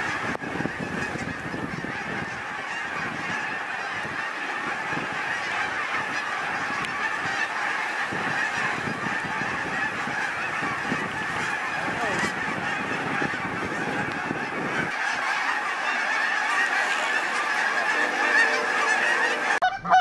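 A huge flock of geese flying over, many birds honking at once in a steady, continuous din. It breaks off abruptly just before the end.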